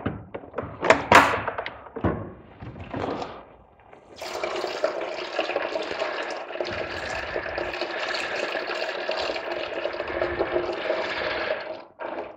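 A few knocks and clicks as the BMW Z3's radiator is worked loose, then about eight seconds of steady liquid pouring, the leftover coolant running out of the tilted radiator, which stops suddenly near the end.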